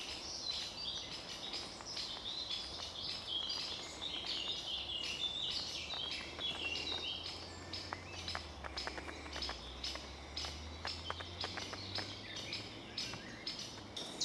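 Small woodland songbirds singing and chirping, many short high notes overlapping, with a run of short sharp clicks in the second half.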